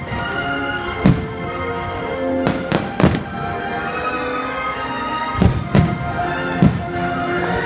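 Fireworks bursting with several sharp booms over loud music played through the show's speakers.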